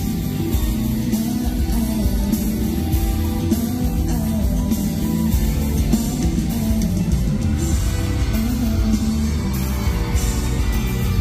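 Loud pop-rock song with guitar and drums running steadily.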